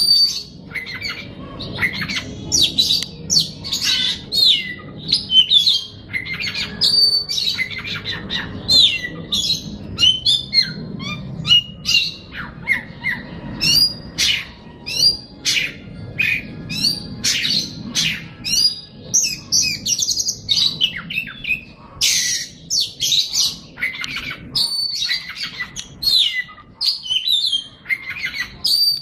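A songbird singing a fast, varied song of sharp chirps and whistled notes, almost without pause.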